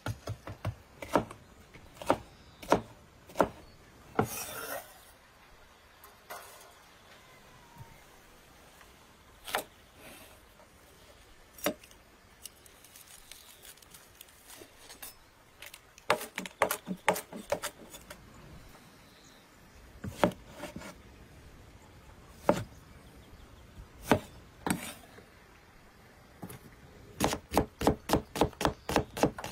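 Large kitchen knife chopping vegetables on a wooden cutting board. Single knocks come first, then quick runs of rapid chops, the fastest near the end as an onion is sliced.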